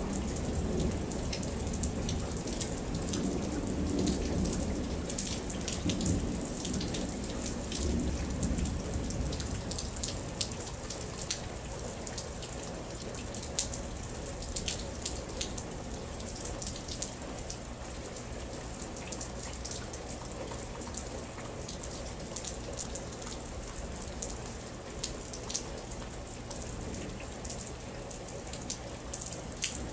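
Rain falling steadily, with many close drips and drops ticking. A low thunder rumble dies away over the first several seconds.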